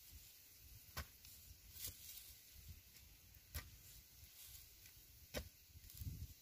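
Faint knocks of a metal digging pipe jabbed into dry, hard-baked clay soil, four short sharp strikes a second or two apart over a faint steady hiss.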